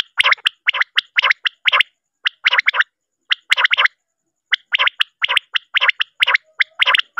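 Recorded common quail (batair) calls of the kind played as a lure for quail netting: short raspy notes in quick groups of two to four, repeated with brief pauses between groups.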